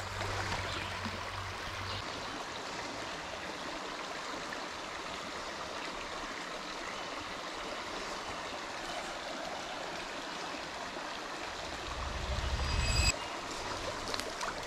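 Small spring creek's water running steadily over its stones. Near the end a low rumble swells for about a second and cuts off suddenly.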